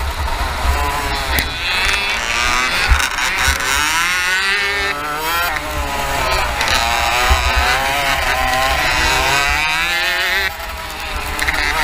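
Racing kart engine heard from on board, revving up and down through the corners, its pitch rising and falling again and again, with other karts running close by. A heavy wind rumble lies under it.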